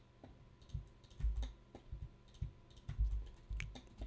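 Computer keyboard keys and mouse buttons clicking irregularly as 3D modelling software is worked, with a few dull low thumps mixed in.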